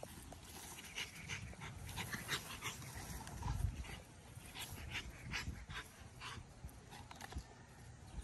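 An American Bully dog panting hard in short irregular breaths, from the exertion of chasing a flirt pole lure.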